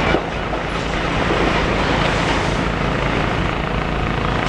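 Demolition excavator's diesel engine running steadily at work, a low drone under a broad wash of noise.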